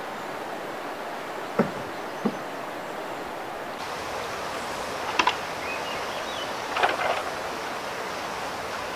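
Steady rush of a river running over a shallow riffle, with a few short, sharp knocks heard now and then.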